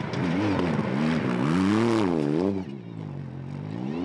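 Rally-raid car's engine revving up and down again and again as it drives under load through soft sand. It is loudest about halfway through, falls away briefly, then picks up again near the end.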